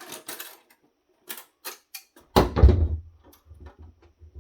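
Sharp metallic clicks and scrapes of channel-lock pliers working the threaded locking screws on VGA connectors, then a loud clunk a little over two seconds in.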